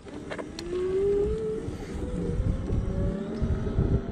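Electric scooter's motor whining as it accelerates from a standstill, the whine rising steadily in pitch with the speed, over road rumble and wind noise on the microphone.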